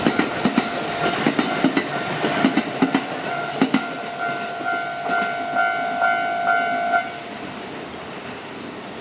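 Japanese level-crossing alarm ringing its repeated electronic "kan-kan" tone while a Kintetsu train's wheels clatter over the rail joints for the first few seconds. The alarm stops abruptly about seven seconds in.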